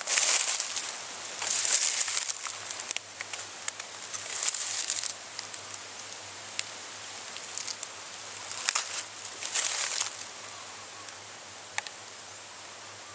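Footsteps crunching and rustling through dry leaf litter and undergrowth in uneven bursts, with small crackles and snaps. After about ten seconds it settles to a faint steady hiss.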